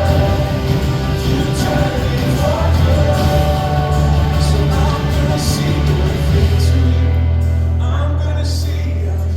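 Worship music with singing over a strong, steady bass. Roughly two-thirds of the way in, the melody gives way to a held chord.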